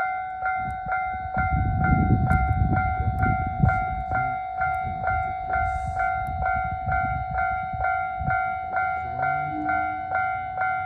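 Electronic railway level-crossing alarm bell ringing steadily, about two strikes a second, the warning that a train is coming. A low rumble under it is loudest in the first few seconds, then eases.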